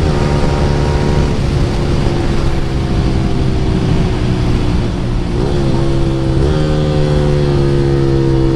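Yamaha R15 V3's 155 cc single-cylinder engine through an Akrapovic R9 full-system exhaust on the move, its note slowly falling in pitch as the bike slows. A little past halfway there are two quick blips of the throttle.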